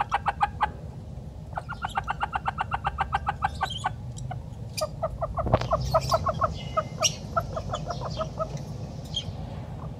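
Aseel hen clucking in fast repeated runs of about seven clucks a second, then a slower run of clucks, around the laying of an egg. A single sharp click comes about five and a half seconds in.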